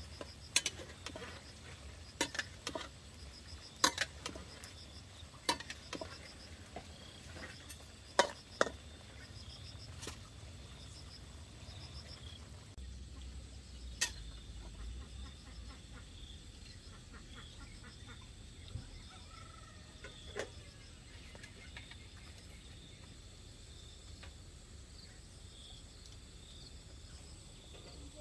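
Crickets or similar insects chirping steadily in the background. Irregular sharp knocks stand out over this, about eight of them in the first half and one more a little after the middle, louder than the insects.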